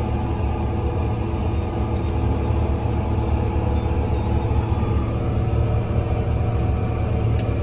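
Farm tractor engine running steadily as the tractor drives along pulling a manure spreader, a constant low drone.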